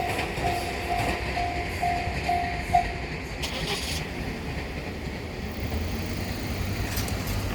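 Level-crossing warning bell ringing about two and a half times a second, then stopping about three seconds in once the train has cleared, over the fading low rumble of the departing train.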